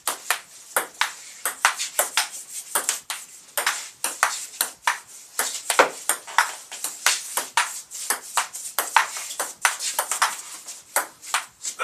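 Table-tennis rally: the celluloid ball clicks off the paddles and the table in quick, even succession, about three hits a second, without a break.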